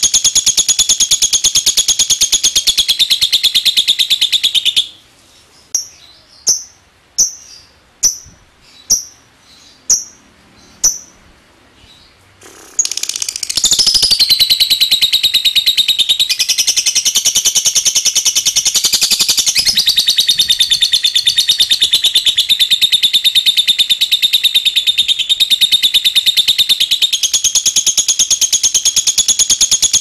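Fischer's lovebird giving its long, rapid, high chattering trill (ngekek). About five seconds in it breaks into a string of about eight single sharp clicking chirps (ngetik), then goes back into a long unbroken trill a few seconds later.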